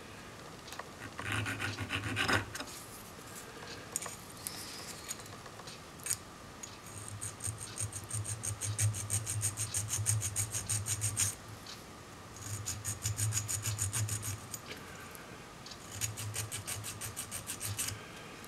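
Small needle file rasping in quick back-and-forth strokes on a small metal part of a Stanley 71 router plane's depth adjuster, in several short runs with pauses between. The filing eases a spot where the adjuster still binds.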